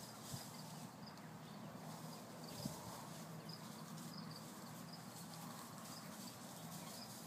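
Quiet back-yard ambience: a faint steady low hum with soft, high chirps repeating about twice a second, and a couple of small ticks.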